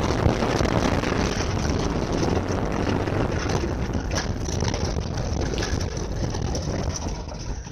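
Steady road and engine noise inside a moving Volvo's cabin: a low rumble under an even hiss, easing slightly near the end.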